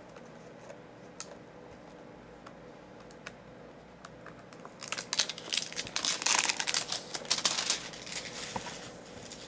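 Packaging of a trading-card box crinkling and tearing as it is worked open, in a dense crackling run from about five seconds in until near the end, after a few light clicks of handling.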